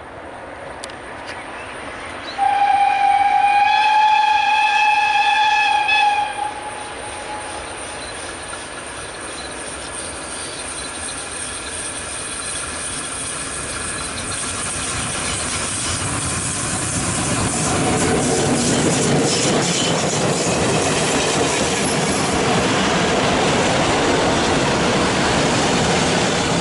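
Class 52 steam locomotive sounding one long steam-whistle blast of about four seconds. It then approaches and passes with its train, its running noise growing louder, ending in the rattle and clicking of the coaches' wheels going by close.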